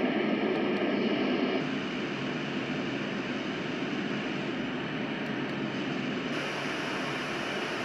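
Yogasleep Whish sound machine playing a steady noise sound through its speaker. The sound changes to a different setting about a second and a half in, a little quieter, and changes again near six seconds with more hiss added.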